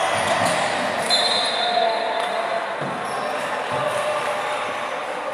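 Basketball game sounds echoing in a large sports hall: the ball bouncing on the hardwood court amid the chatter of spectators, with a brief high squeak about a second in.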